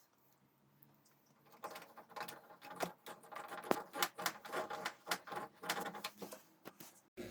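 A rapid, irregular run of small clicks, taps and rattles, like hard plastic and metal parts being handled. It starts about a second and a half in.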